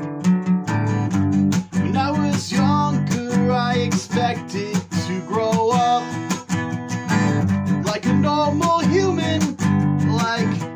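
A man singing to his own strummed acoustic guitar. The guitar plays alone for the first couple of seconds, then the voice comes in over it.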